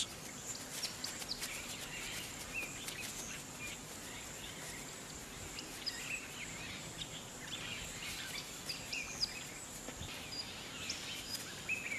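Outdoor natural ambience: scattered short bird chirps and calls over a faint, steady high-pitched hum and a soft background hiss.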